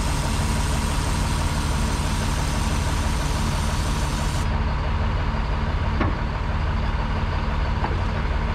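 Heavy diesel equipment running steadily: a John Deere 644G wheel loader pressing against the crawler track of a Bucyrus-Erie 25-B dragline. A single short click comes about six seconds in.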